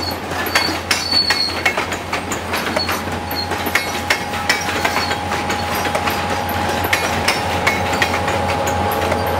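Reading & Northern freight train of open-top hopper cars rolling past, wheels clicking and clattering over the rail joints over a low rumble. About three seconds in, a steady high squeal from the wheels comes in and holds.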